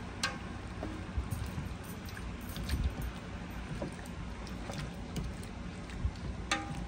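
Seafood-boil pot boiling with a steady low rumble. Two metal clinks that ring briefly, one about a third of a second in and one near the end.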